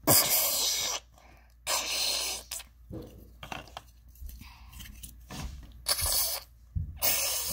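A pepper being cut up and handled: a string of scraping, crunching bursts about half a second to a second long, the loudest right at the start.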